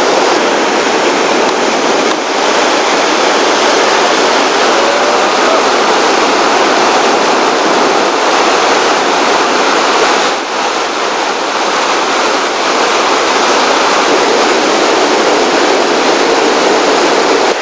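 Whitewater rapids rushing steadily and loudly, a continuous churning roar of water with only brief small dips in level.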